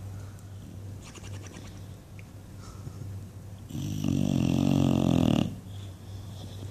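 English bulldog snoring in its sleep: one loud, rattling snore lasting under two seconds, starting about four seconds in, with quieter breathing before and after over a steady low hum.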